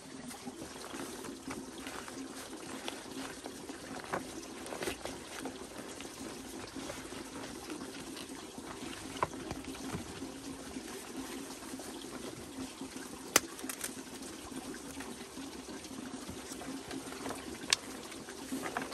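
Steady trickle of running water, with crisp rustles and sharp crackles of large dong leaves being stacked and rolled into a bundle, the loudest snaps about 13 and 18 seconds in.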